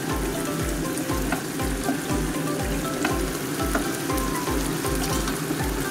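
Sauce and beef pieces sizzling in a frying pan while a spatula stirs them, with scattered light clicks of the spatula against the pan, over background music with a steady beat.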